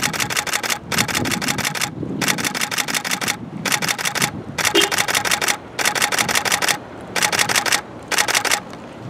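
Still camera shutters firing in continuous-shooting bursts: about eight runs of rapid clicks, each under a second long, separated by short pauses.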